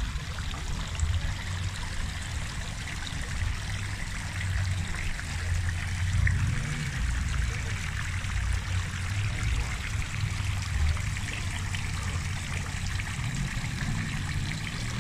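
Garden fountain water trickling and splashing steadily, over a low, uneven rumble of wind on the microphone.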